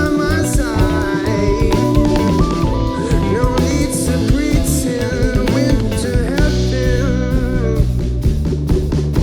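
A rock band playing an instrumental passage: a guitar lead with bending notes over bass and drum kit, with cymbal hits.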